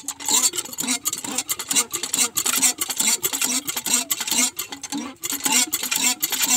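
Cast-iron hand pump being worked rapidly to prime it: repeated rasping, clanking strokes of the handle and plunger, with sucking and gurgling of water and air.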